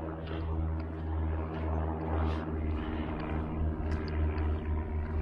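A steady engine drone holding one pitch, with no rise or fall.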